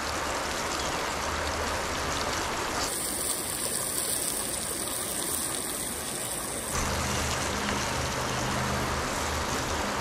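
Creek water running steadily over rocks, with oyster mushrooms and sliced onion frying in butter in a camp-stove pan. From about three seconds in to nearly seven, a brighter, hissier sizzle of the frying pan is heard up close.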